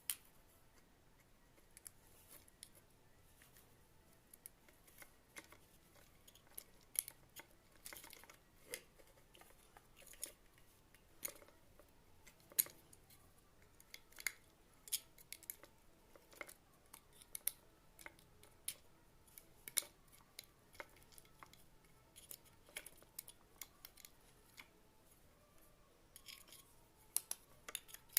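Irregular small clicks, taps and scrapes of hand tools and small parts being handled during work on a clothes iron, with a quicker run of clicks near the end.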